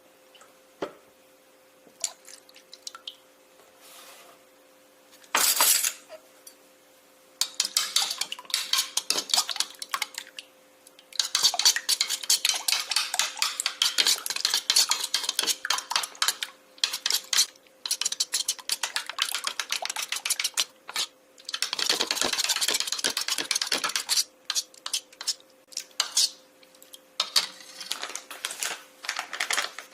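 Hard kitchenware clinking and clattering, dishes and cutlery being handled, in quick runs of small sharp knocks. A few scattered clicks at first, growing busy from about seven seconds in, over a faint steady hum.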